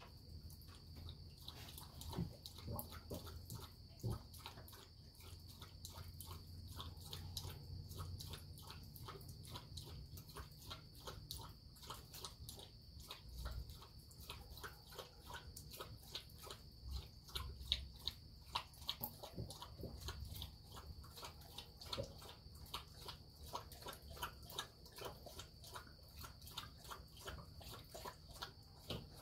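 Night insect chorus trilling steadily at one high pitch, with a dense scatter of light irregular ticks over it that grows busier later on and a low rumble underneath that swells now and then.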